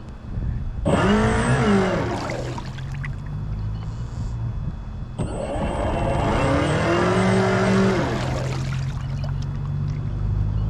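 Radio-controlled model boat motor revving up and dropping back twice, the pitch rising then falling each time, over a steady low hum.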